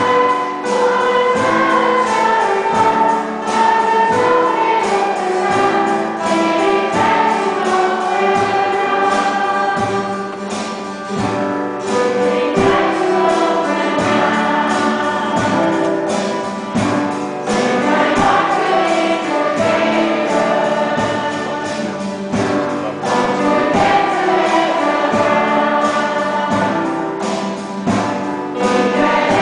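Children's choir singing a song, accompanied live by keyboard and a drum kit keeping a steady beat.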